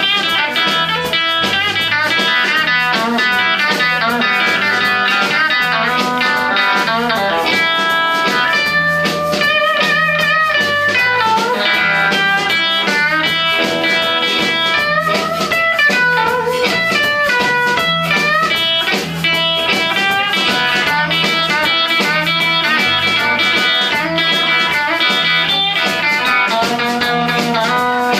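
Live electric blues band playing: electric guitar, electric bass and drum kit with amplified harmonica, some notes bending in pitch over a steady beat.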